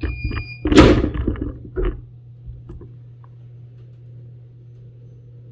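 Heat press beeping briefly as its timer runs out, then the press opening with a loud clunk about a second in and a couple of lighter knocks as the upper platen lifts off the shirt. A steady low hum runs beneath.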